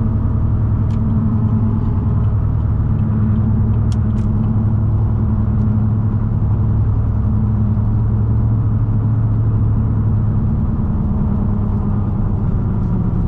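6.0L Vortec V8 of a Chevrolet Silverado 2500HD with an aftermarket exhaust, running at a steady cruise: a low, even drone that holds its pitch.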